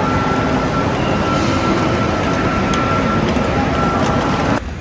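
Loud, steady vehicle travel noise: a dense rumble and hiss with a thin steady whine over it. It cuts off abruptly near the end.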